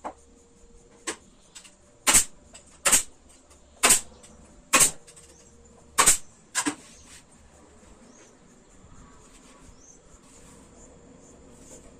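Pneumatic pin nailer firing pins through a wooden stool seat into the legs: five loud sharp shots about a second apart, with a few lighter clicks before and one just after.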